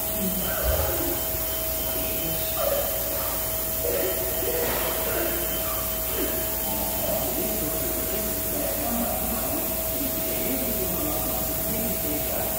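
Elumatec SBZ 150 CNC profile machining centre running, a steady whine over a constant hiss, with a few faint knocks as the spindle head moves over the aluminium profile.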